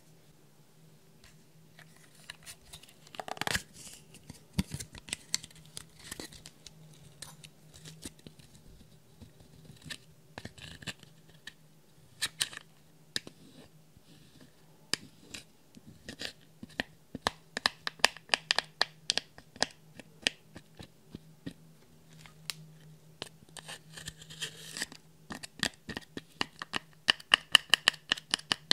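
Pressed face powder in a compact being broken up with a pointed metal tool, giving dry crackling and scratching in quick, irregular clicks. The clicks grow thicker past the middle and come thickest near the end.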